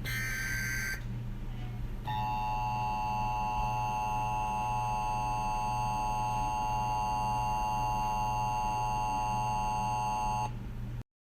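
Emergency Alert System broadcast tones. The last of the SAME data-header bursts, a one-second burst of two alternating tones, plays first. After a short pause comes the steady two-tone EAS attention signal for about eight seconds over a low hum, then it cuts off abruptly.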